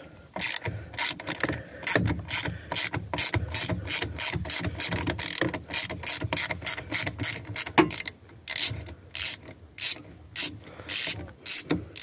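A hand ratchet with a T25 Torx bit clicking steadily, about three clicks a second, as it backs out the screws holding a turn-signal switch on a steering column. About eight seconds in the clicking pauses, then comes in shorter runs.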